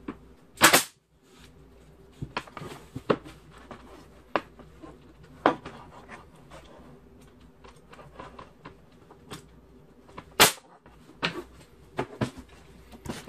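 Pneumatic nail gun firing nails into wooden door trim: two loud sharp shots, one about a second in and one about ten seconds in, with lighter clicks and knocks between as the tool is handled and set against the casing.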